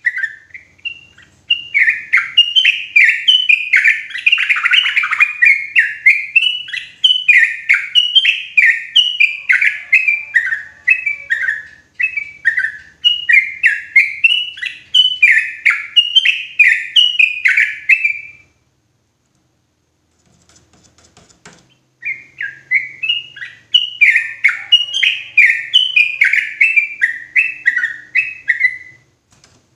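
Yellow-vented bulbul singing loudly: a fast, bubbling run of short chirping notes. The song breaks off for a few seconds about two-thirds of the way through, then starts again.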